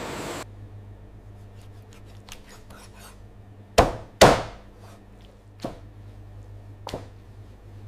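Sharp knocks over a steady low hum: two loud ones close together about four seconds in, then single lighter knocks and faint clicks.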